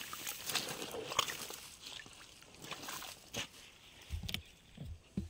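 Shallow muddy canal water sloshing and lapping, stirred up by a hand net on a pole swept through it, with a few soft knocks near the end.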